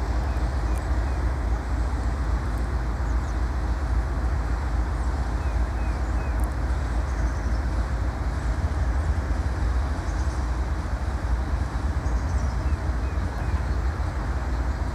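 Distant diesel freight locomotives, a GE ES44AH and a GE Dash 8-40CW, approaching slowly: a steady low rumble that does not change.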